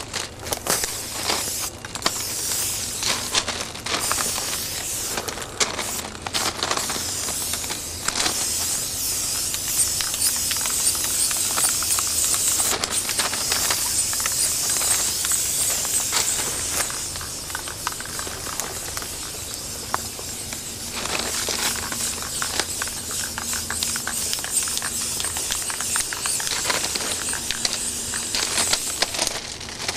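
Aerosol spray paint can hissing as it is sprayed onto the steel side of a railcar: many short spurts at first, then one long continuous spray lasting several seconds, then shorter, quieter spurts again.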